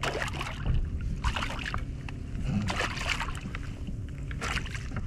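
Water splashing and sloshing at the side of a kayak as a small lingcod is brought up and landed, in a few irregular splashes over a low steady rumble.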